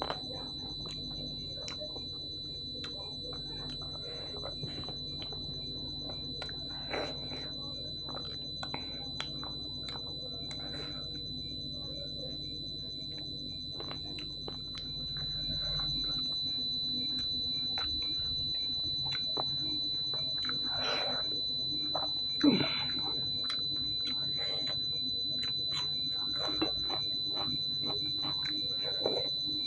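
Close-up eating sounds of a person eating dhido and chicken curry by hand: chewing, lip smacks and small wet clicks, with one louder slurp-like sound about two-thirds of the way through. A steady high-pitched whine runs underneath throughout.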